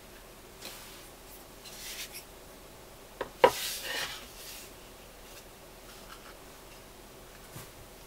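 A wooden board and plaster press mould, with a clay slab between them, being handled and flipped over: soft rubbing and sliding, then two sharp knocks a little over three seconds in, the second the loudest, as the stack is set down, followed by a short scrape and a light tap near the end.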